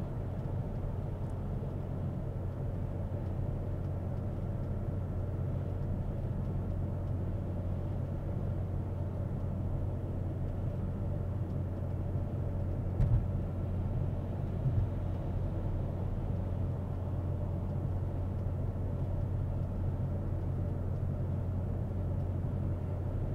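Steady low road and wind rumble of a BMW X5 M SUV towing a travel trailer at highway speed, with two short thumps about halfway through.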